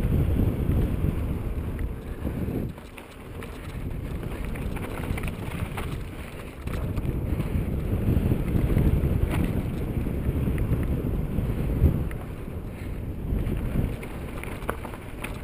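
Wind buffeting the microphone and mountain bike tyres rumbling over a dirt singletrack during a fast descent. The rush swells and eases, dropping briefly about three seconds in, with a few sharp knocks from the bike over bumps.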